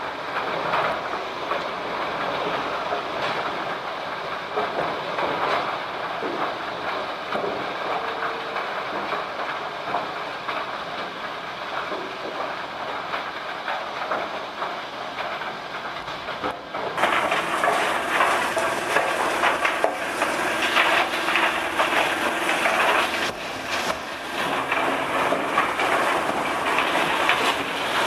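Industrial wood crusher running and shredding waste building formwork boards: a dense, steady machine noise. More than halfway through it suddenly gets louder and brighter.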